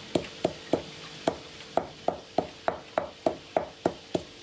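Stone pestle pounding chili paste and spices in a heavy stone mortar: a steady run of dull thuds, about three a second.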